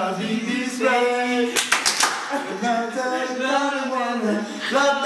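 A small group of people singing together in a small room, with a few claps about one and a half to two seconds in.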